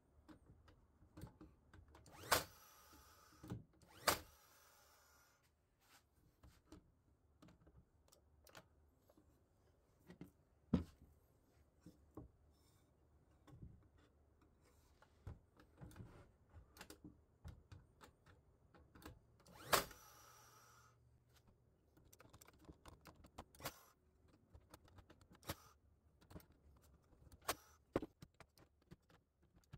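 Workshop handling sounds in a woodworking shop: scattered light clicks and knocks. There are four sharp, louder snaps, about 2, 4, 11 and 20 seconds in, and three of them are followed by a brief hiss.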